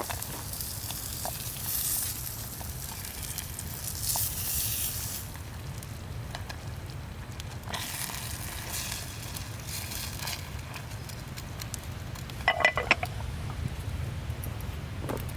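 Campfire cooking: food sizzling over a wood fire, with hissing swells on top of a low steady rumble, and a quick cluster of sharp knocks about twelve and a half seconds in.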